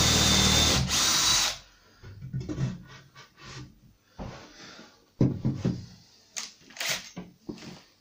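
Cordless drill-driver running at speed into a timber batten, with a brief break, then cutting off about a second and a half in. After it, scattered knocks and taps of wood being handled.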